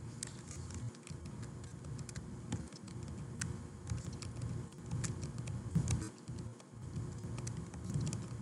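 Computer keyboard typing in short, irregular runs of keystrokes, as double slashes are typed to comment out lines of code.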